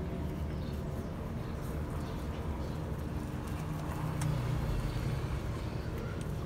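A steady low background rumble, with a few faint clicks.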